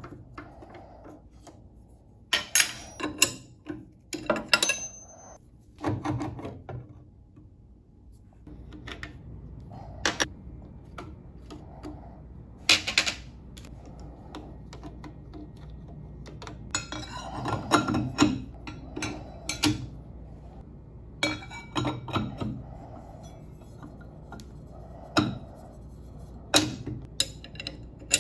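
Metal clinks and clanks of a table saw blade change: the arbor nut, flange washer and saw blade being taken off and put back by hand, and wrenches working on the arbor. The clinks come in irregular clusters of sharp knocks, some of them loud.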